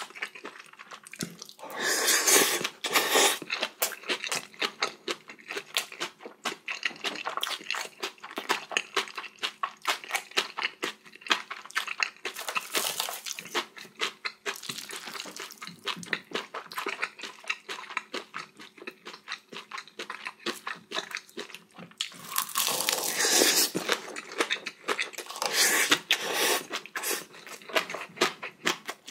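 Close-miked eating sounds of a person chewing and crunching mouthfuls of spicy bibimbap and kimchi, with many quick wet mouth clicks. Two louder, noisier stretches come about two seconds in and again around twenty-two seconds in.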